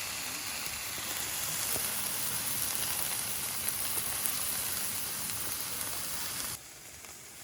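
Meat sizzling in a hot pan, a steady, dense hiss that cuts off abruptly about six and a half seconds in.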